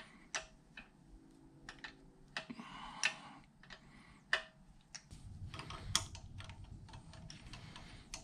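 Faint, irregular metallic clicks and taps of a wrench working the brass oil-line fittings, loosening a plug from a four-way junction. A low rumble comes in about five seconds in.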